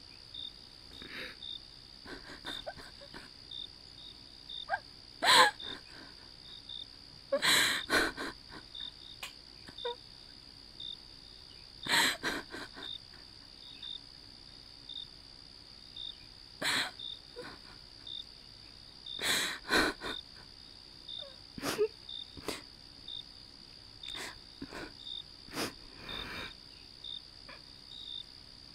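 A young woman crying: gasping sobs, sniffs and shaky breaths every few seconds, the loudest about five, eight, twelve and nineteen seconds in, over steady chirping of crickets.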